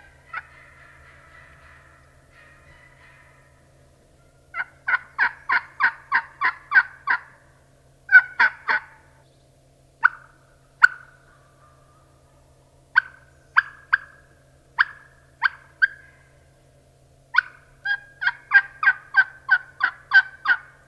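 Turkey hen yelping in strings of short, sharp notes: a run of about eight yelps, a few scattered single yelps, then another run of about ten near the end.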